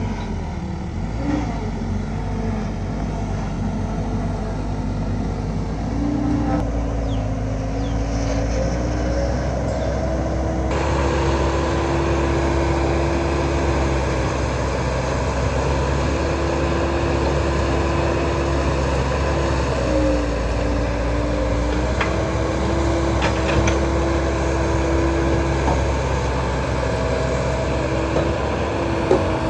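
Kubota DC70 rice combine harvester running steadily, its diesel engine holding an even pitch with the machinery's hum, with small dips in pitch now and then.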